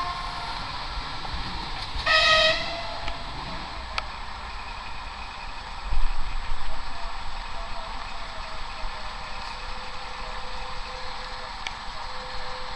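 A locomotive sounds one short, high toot on its signal horn about two seconds in, over the background noise of rail vehicles. About six seconds in comes a louder low rumble lasting a second or two.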